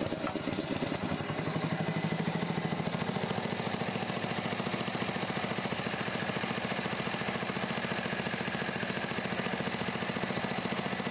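Small recoil-start petrol engine idling steadily with an even, fast pulsing beat, just after being pull-started. It drives the V-belts over the tensioner pulley that serves as the clutch.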